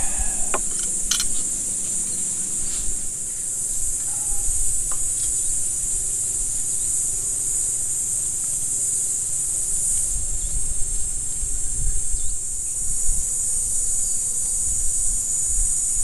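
Steady high-pitched chorus of insects over a low, uneven rumble, with a few light clicks about a second in.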